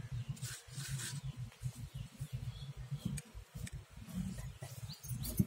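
Low, uneven rumble of wind buffeting the microphone, with a few faint soft rustles as fingers mix chilli powder and salt on a metal plate.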